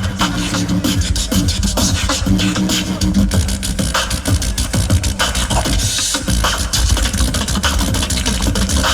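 Tag-team beatboxing: fast vocal percussion strokes, clicks and snares, layered over a held, hummed bass line.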